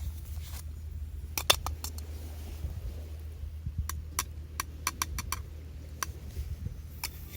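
Irregular sharp clicks and ticks over a low steady rumble, with a quick run of about eight clicks in the middle.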